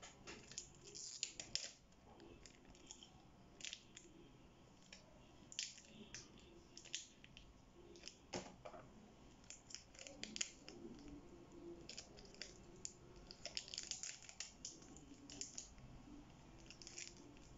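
Faint, scattered crackling and crinkling of a plastic Oreo biscuit wrapper being peeled off a frozen homemade ice-cream lolly, busiest about three-quarters of the way through.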